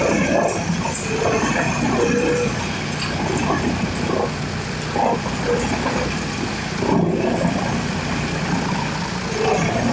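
Wood chipper running: a steady low engine rumble with irregular clatter, and a few short high-pitched squeals in the first two seconds and again about halfway through.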